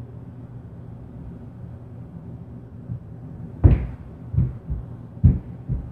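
Heavy footsteps stomping on the floor of the apartment above, heard through the ceiling as dull low thuds: four of them in the last two seconds, the first and third the loudest.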